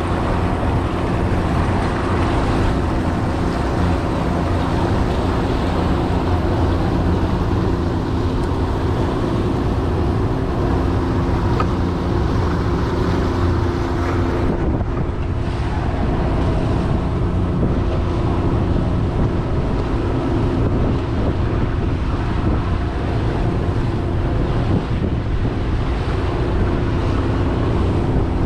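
Tiller-steered outboard motor running steadily, pushing a small open boat along, with water rushing past the hull and wind buffeting the microphone.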